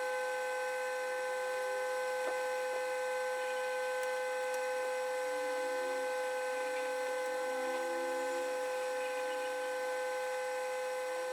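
Steady electrical hum of a running household appliance, made of several constant pitched tones with faint higher hiss.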